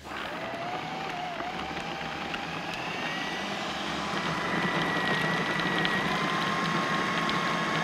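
Electric food processor running, blending cashews, garlic, basil, spinach and olive oil into pesto. It starts at once as a steady whir with a motor whine that climbs slightly in pitch over the first few seconds and then holds.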